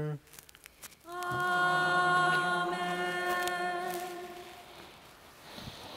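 Sung "Amen" response to a chanted prayer: a single voice holding one long, steady note that slowly fades away.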